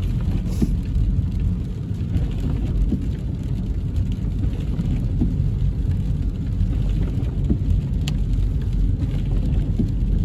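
Inside a moving car's cabin: a steady low rumble of engine and tyres on a wet road, with rain pattering on the windshield and a few faint ticks of drops.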